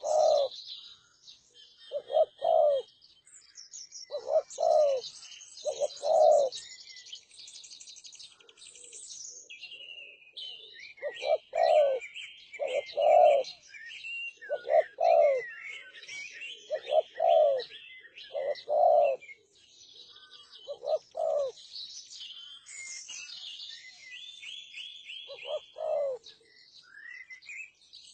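Derkuku (Sunda collared dove) cooing in repeated short phrases, a few seconds apart with a longer pause about a third of the way in. Small birds chirp and twitter continuously at a much higher pitch behind it.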